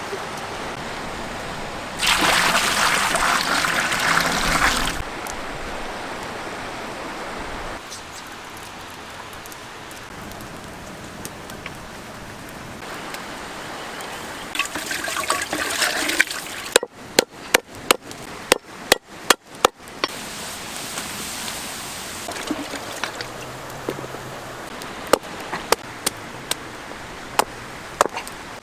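Water running and trickling, with a louder splashing gush a couple of seconds in and again about halfway. Later comes a quick run of sharp knocks, about three a second, and a few more scattered knocks near the end.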